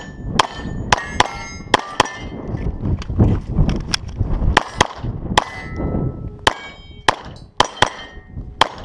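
A Glock 34 9mm pistol fired in a quick string of shots at steel targets, most shots followed by the high, ringing clang of a steel plate being hit.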